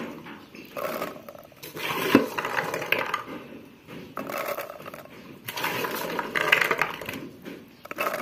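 Mak mao berries clattering against a wooden pestle and the inside of a mortar. It comes in several bursts of quick small knocks, each about a second long.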